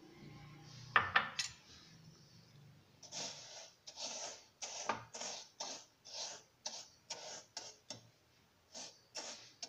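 A steel spoon clinks sharply against a metal pan a few times, then spreads dry granulated sugar across the hot pan in short gritty scraping strokes, about two a second. This is sugar being spread out evenly before it melts for peanut chikki.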